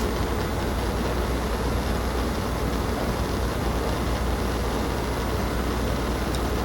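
Steady low hum with an even hiss over it, unchanging throughout: the background noise of the recording.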